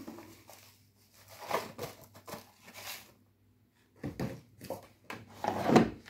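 Powdered detergent being poured and shaken from a box into the open detergent drawer of an LG front-loading washing machine, a series of short rustles and scrapes. Near the end the plastic drawer is pushed shut, the loudest sound.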